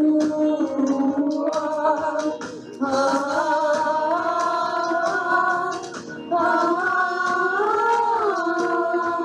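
Praise and worship music: a melody in long held notes, each a few seconds, with a light rattling percussion.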